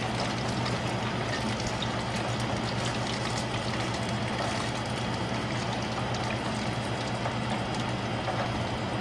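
Hot cooking oil sizzling and crackling steadily around a freshly deep-fried whole chicken as it drains in a strainer basket over the frying pot, with a steady low hum beneath.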